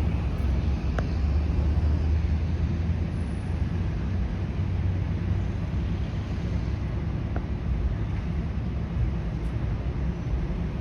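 Steady low rumble of vehicle noise, with a couple of faint clicks.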